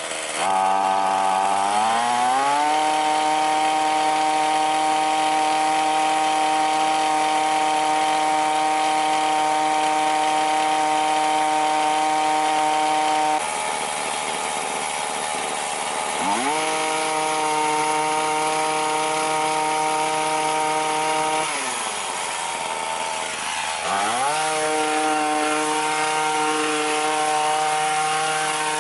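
McCulloch HT5622 hedge trimmer's two-stroke engine running after a carburettor rebuild. It revs up to a steady high speed and drops suddenly to idle about halfway through. It revs back up, then eases down to idle and revs up again near the end.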